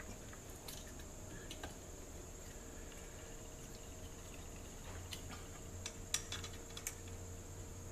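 Faint metallic clicks and scrapes of a small hand tool snugging up the ignition coil's mounting bolts on a McCulloch Mac Cat chainsaw, with a few sharper clicks about six to seven seconds in, over a steady low hum.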